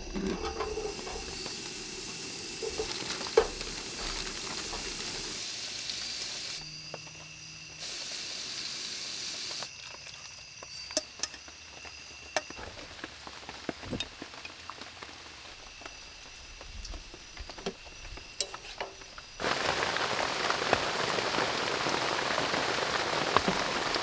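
Food sizzling in a frying pan on a camp stove, with scattered clicks and knocks of utensils and cans. About three-quarters of the way through, heavy rain on the awning comes in suddenly and stays loud.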